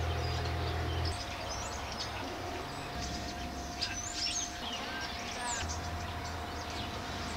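Small birds chirping and twittering, many short calls that cluster in a busier run about halfway through, over a low rumble that comes and goes and a faint steady hum.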